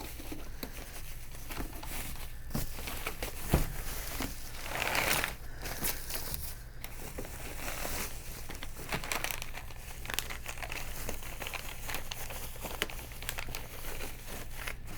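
Plastic packaging crinkling and rustling as an espresso machine is handled and unwrapped, with scattered clicks, a sharp knock a few seconds in and a louder burst of rustling soon after.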